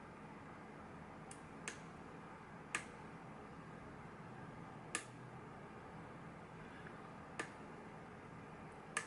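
Faint, sharp metallic clicks, about six at uneven intervals, from a pick and tension wrench working the pins of a pin-tumbler lock, with pins clicking as they set.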